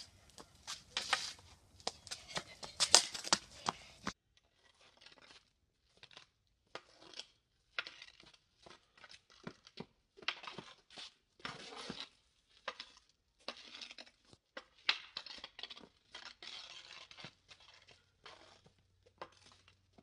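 Hockey stick blade tapping and scraping on a concrete driveway while stickhandling a street-hockey ball, in quick irregular clicks and scrapes. The sound is loud for about the first four seconds, then drops suddenly and goes on fainter.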